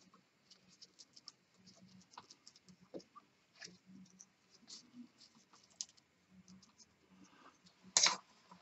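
Scattered small clicks and scratches of a pointed steel tool and tarred serving twine being worked among the turns of a served rope, then a louder clatter about eight seconds in as the wooden serving mallet is shifted on the rope.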